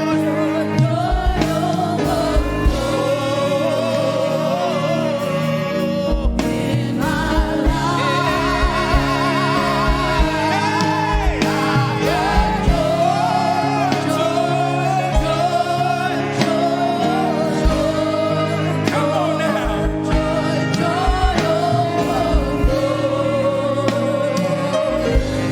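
Live gospel praise-and-worship music: voices singing over a steady band accompaniment, with a regular low drum beat.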